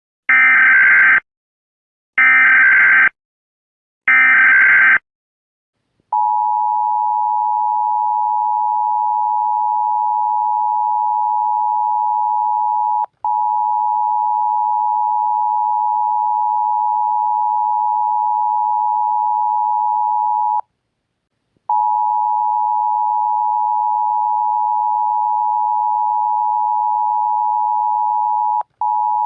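Emergency Alert System tones: three one-second bursts of SAME header data, followed by the two-tone EAS attention signal held steady. The attention signal drops out briefly about 13 seconds in and again near the end, and breaks off for about a second around 21 seconds.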